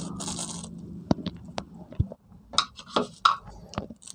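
A thin plastic bag rustling and crinkling in the hands as seasoning is shaken out of it and the bag is folded. There is a brief hiss at first, then a run of sharp irregular crackles.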